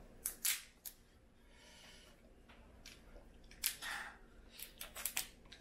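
Crawfish shells cracking and snapping as they are broken and peeled by hand: a few sharp cracks near the start, then a quick run of them in the second half.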